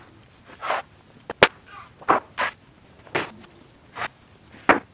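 Footsteps on concrete, with two sharp wooden clacks of lumber boards knocking together as they are stacked, about a second and a half in and again near the end.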